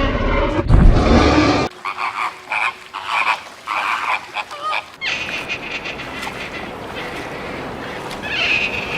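Animal calls: a loud low sound that cuts off sharply about two seconds in, then a string of short repeated calls, then a steadier chorus of calls in the second half.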